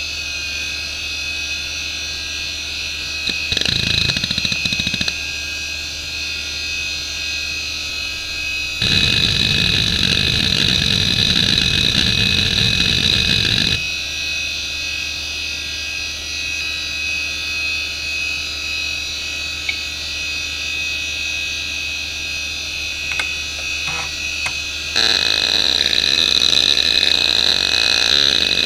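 Samsung WN310820A 1.08GB hard drive, a single-platter 4500 rpm IDE drive with a Nidec spindle motor, spinning with a steady low hum and a high whine. Its heads seek rapidly in dense, louder bursts about 3 to 5 seconds in, about 9 to 14 seconds in, and again from about 25 seconds in, as benchmark and head-movement test programs drive random access.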